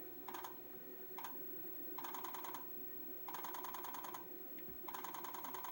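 US Robotics 33.6 fax modem dialing the phone number, heard through its speaker. It makes a string of short buzzy dial sounds of differing lengths, one per digit, with brief gaps between them and a faint steady tone underneath.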